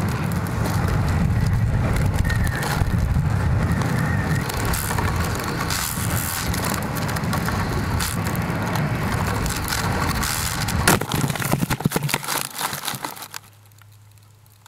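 Wind rushing and buffeting over the microphone of a descending weather-balloon payload, with scattered crackles. Late on, a burst of knocks and crunches as the payload hits the ground and settles into dry grass, and then it goes quiet apart from a faint low hum.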